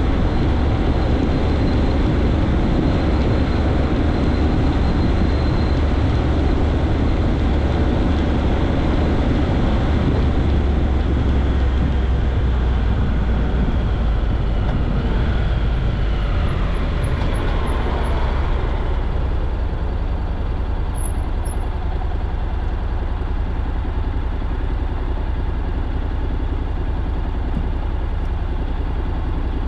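Vehicle driving, with steady engine and road rumble. A little past halfway it slows down, the engine pitch falling, and it then idles more quietly at a standstill.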